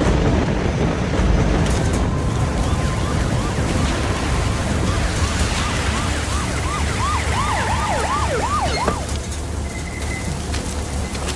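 Heavy rain pouring down, with a police car siren yelping in quick rising-and-falling sweeps from about two seconds in. The siren grows louder, then stops about nine seconds in.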